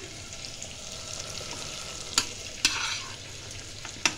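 Potato pieces frying in hot oil in a pan, with a steady sizzle. A spatula knocks and scrapes against the pan a few times: once about two seconds in, a longer scrape just after, and once more near the end.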